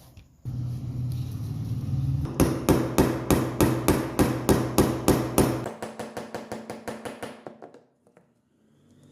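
Rapid, even hammer blows, about four a second, becoming lighter in the last second and a half before stopping. A steady low hum runs under the first part and stops partway through the hammering.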